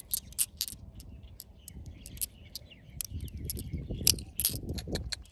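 Polished tumbled stones clicking against one another in a hand, in quick runs of sharp clinks, over a low rumble.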